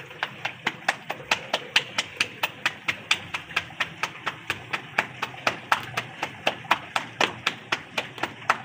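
Ball of roti dough slapped between the palms to flatten it by hand, a steady run of sharp pats about four a second.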